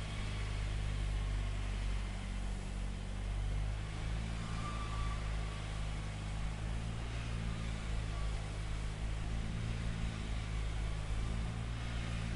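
Mobile crane's engine running steadily, a low even drone with a light hiss over it.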